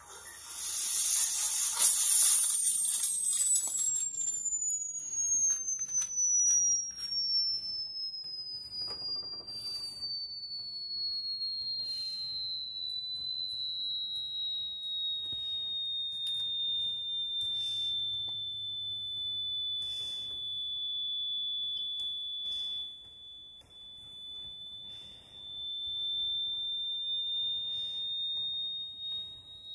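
A loud hissing rush for the first few seconds, then a thin, high-pitched whistling tone that slides slowly down in pitch over about ten seconds and then holds nearly steady, with scattered faint clicks.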